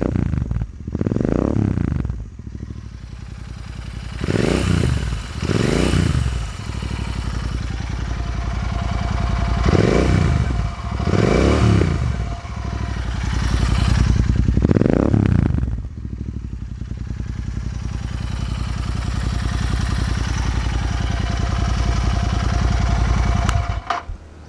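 Royal Enfield Continental GT 650's 648cc air- and oil-cooled parallel-twin idling through an AEW aftermarket exhaust, revved in about six quick blips that rise and fall in the first two-thirds, then settling to a steady idle. The engine stops just before the end.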